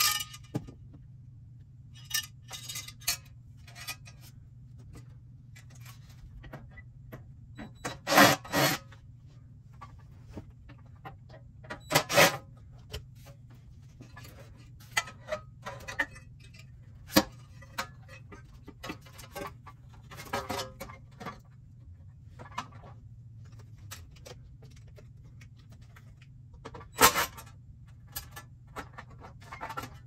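Bolts coming out of a dehumidifier's sheet-metal blower bracket: a few short, loud bursts from a cordless impact driver, with scattered clicks, clinks and rubbing as the metal parts are handled.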